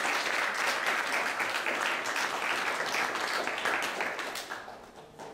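Audience applauding, a dense clatter of many hands clapping that dies away near the end.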